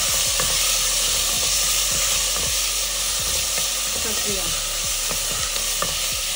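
Chopped onion and tomato sizzling in hot oil in a stainless steel pressure cooker while a wooden spoon stirs them, with light scattered clicks of the spoon against the pot.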